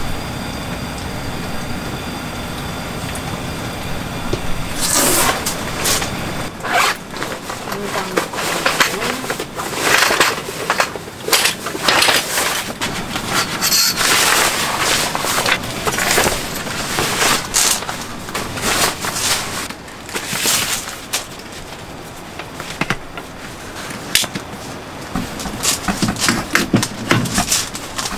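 A fan heater's steady whir for the first few seconds, then clattering, scraping and fabric rustling as a folding camp cot is unpacked and its poles are fitted together and slotted into the frame.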